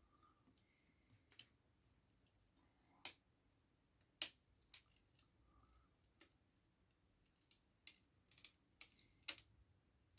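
Faint, scattered sharp clicks and taps from small-scale hand work on an iPhone 6s during a battery repair, with the protective film being removed; about a dozen irregular clicks, the loudest about four seconds in and a quick cluster near the end.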